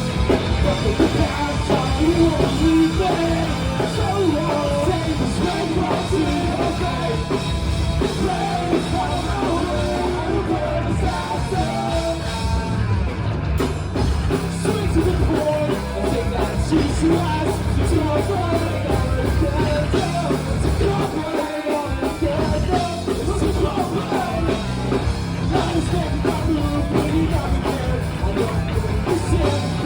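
A live rock band playing a song, with a drum kit, guitars and bass under a singer's vocal line.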